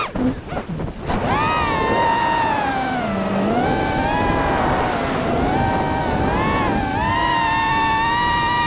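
FPV quadcopter's electric motors whining, heard from the onboard camera; the pitch slides up and down with the throttle. In the first second the throttle is chopped and the whine cuts in and out several times, then it runs on, dipping and rising, and settles higher and steadier near the end.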